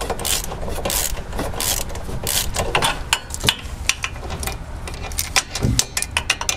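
Socket ratchet wrench clicking in quick runs of strokes while backing out a rusty rear wheel hub bearing bolt, with some scraping from the bolt threads.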